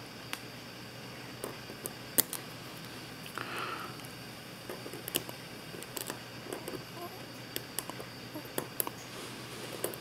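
Hardened steel pick tip, made from a hacksaw blade, scratching at the metal body of a Commando padlock in a hardness scratch test: faint, irregular ticks and scrapes, the loudest about two seconds in, with the tip just beginning to dig in.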